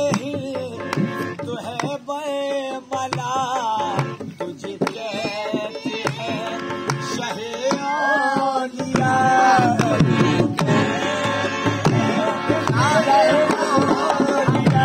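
Qawwali: men's voices singing a devotional song in wavering, ornamented lines over hand-drum strokes. About nine seconds in, the sound grows fuller and louder.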